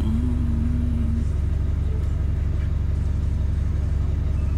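Steady low rumble of a vehicle engine idling, with a short low hum over it in the first second.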